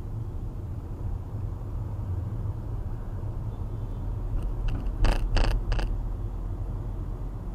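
Steady low rumble of a car driving, heard from a dashcam inside the car. About five seconds in come three sharp knocks in quick succession, the loudest sounds here.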